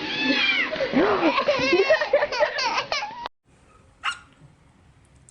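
A cat meowing over and over in short rising-and-falling calls, which cut off suddenly about three seconds in. A brief sharp sound follows about a second later.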